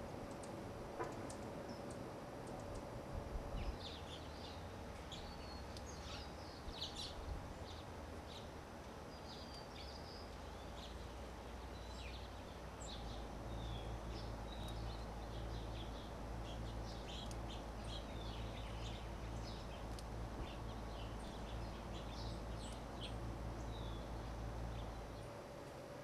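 Small songbirds chirping: many short, high chirps and twitters, scattered and overlapping. Beneath them runs a steady low rumble of background noise that grows louder about halfway through.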